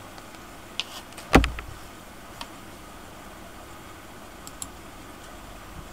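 A few short clicks of a computer mouse, and one louder knock with a low thump about a second and a half in, over a faint steady hiss.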